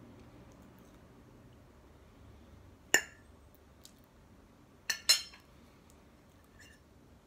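Metal fork clinking against a ceramic plate while cutting into a soft cake: one sharp clink about three seconds in, two more close together about five seconds in, and a faint one near the end.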